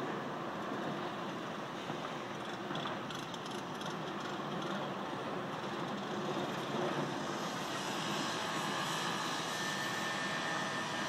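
Steady din of construction machinery, a small excavator and loader, working at a building site. A faint high steady tone comes in near the end.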